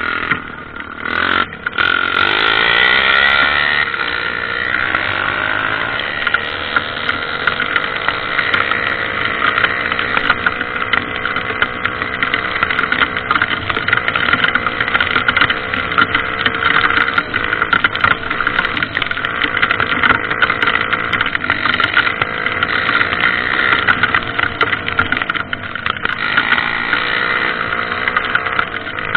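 Motorcycle engine running continuously, louder from about two seconds in, its pitch slowly rising and falling.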